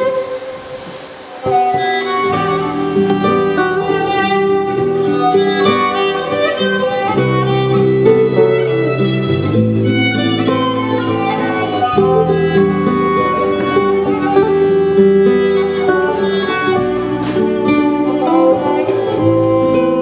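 Instrumental music on strings, a held melody over plucked notes and a stepping bass line. It is quieter at the start and comes back in full about a second and a half in.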